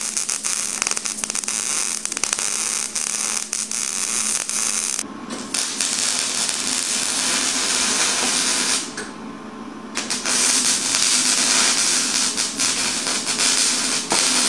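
Electric arc welding on steel: the arc crackles and buzzes steadily, with a low hum under it for the first five seconds. The arc stops for about a second near nine seconds in, then strikes again and carries on.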